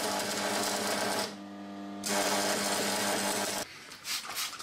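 Stick (arc) welding: the electrode arc crackles and fizzes over a steady hum from the welder, stops for under a second about a second in, then strikes up again. Near the end it gives way to a few quick squirts from a trigger spray bottle.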